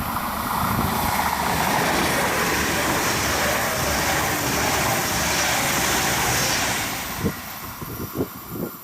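A train passing by, its running noise swelling, holding for several seconds and then fading, with a few short low thumps near the end.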